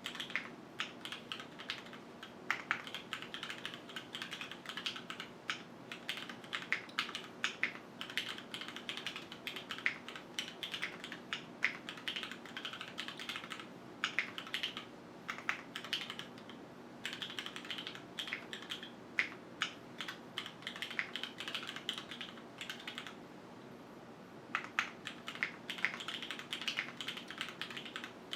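Typing on a QwertyKeys Neo 65 mechanical keyboard with Cherry HyperGlide Black linear switches, an aluminium plate, JTK keycaps, no foam and a gasket mount: rapid, uneven runs of keystroke clicks, with two short pauses in the second half. The sound comes through a camera's built-in microphone.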